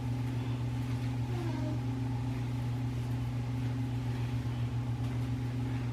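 A steady, even, low electrical hum from a running appliance or motor.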